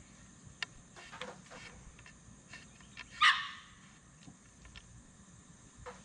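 A dog barks once, briefly, about three seconds in. Around it are faint scattered clicks and rustles from the wires and shaft being handled.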